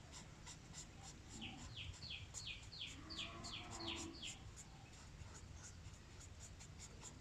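Highlighter pen squeaking and scratching on paper in a run of quick back-and-forth strokes, each a short falling squeak, for a few seconds about a second and a half in.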